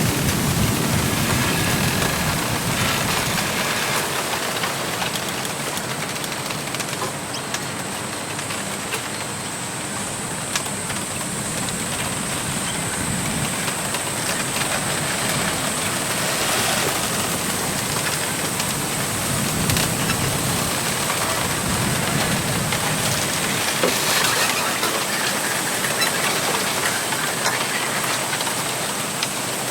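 Steady wind rushing through a bamboo grove, with bamboo stems rubbing against each other and faint scattered clicks.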